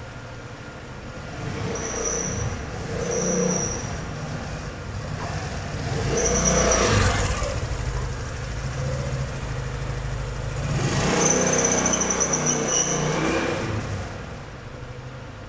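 Suzuki Swish scooter engine and CVT clutch revved up and let down about four times, with a thin high-pitched whine riding on each rev. This is the abnormal noise that has come back about 2,000 km after a new clutch bell and clutch were fitted.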